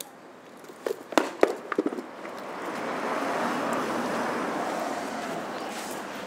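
A few sharp clicks and knocks about a second in, then a passing car's tyre and engine noise that swells and slowly fades.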